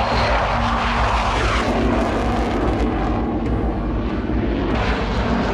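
Jet aircraft engine noise: a loud, steady rushing roar that cuts in abruptly and stays even, with a faint underlying hum.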